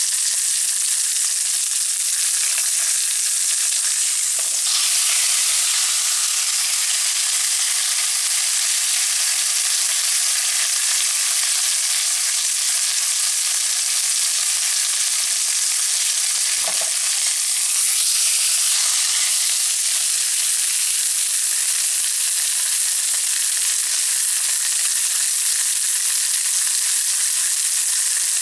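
Scored pork belly frying in a pan, the fat sizzling with a steady hiss. There is a single brief knock about 17 seconds in.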